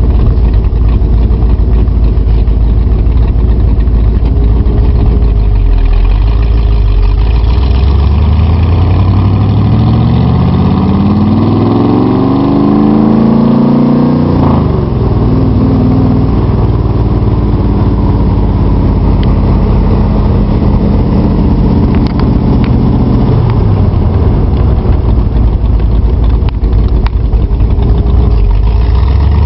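Car engine idling, then revved up slowly over several seconds and let fall back sharply to a raised steady speed. It holds there for several seconds, then drops back to idle near the end.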